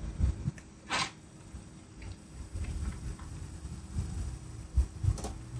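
Quiet handling noise: soft rustles and a few soft knocks, with one sharper click about a second in.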